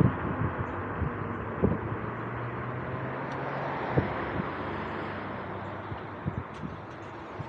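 Steady rush of wind and road noise on a camera riding along a street, with occasional knocks and thumps from bumps, the strongest right at the start and about four seconds in.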